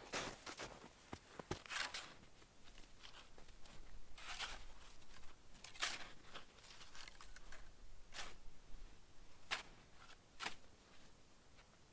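Footsteps crunching in snow, then a snow shovel scooping and scraping through snow in irregular strokes, a crunchy noise every second or two.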